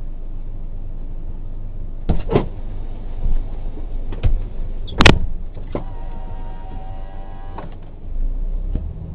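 A truck's idling engine gives a steady low rumble in the cab, with a run of sharp knocks and clicks, the loudest about five seconds in. A buzzing tone follows for about a second and a half, and the low engine sound swells near the end.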